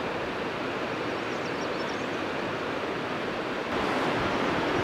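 River water flowing, a steady rushing noise that gets a little louder near the end.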